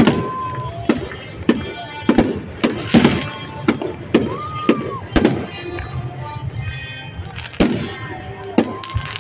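Fireworks going off in an irregular run of sharp bangs, about a dozen in all, over music playing through the stadium's loudspeakers.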